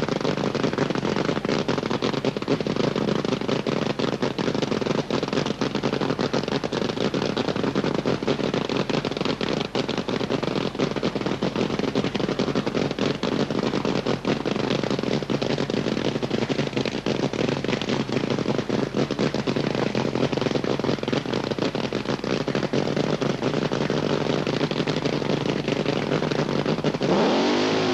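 Dragster engine idling loud and rough with a dense, rapid crackle, then revving up in a rising note near the end.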